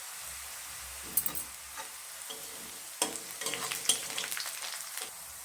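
Onions frying golden brown in hot oil in a pan, a steady sizzle, with bursts of clicking and scraping from a spatula stirring them, about a second in and again in the middle.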